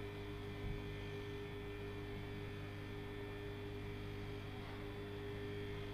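Steady low electrical hum with a couple of faint steady tones above it. No stitching is heard.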